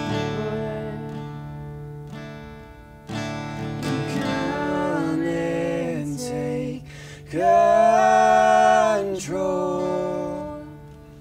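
The end of a live acoustic worship song: acoustic guitar with singing, building to a long, loud held note in the second half that then fades away.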